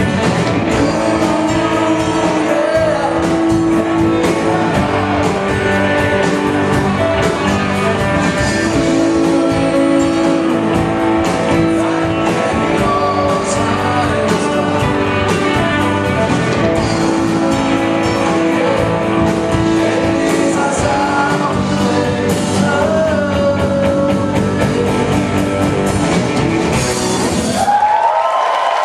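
Live rock band playing, with electric guitars, bass, drum kit and keyboards under a man's lead singing. Near the end the song stops on a final hit with a cymbal wash and the crowd breaks into cheering and applause.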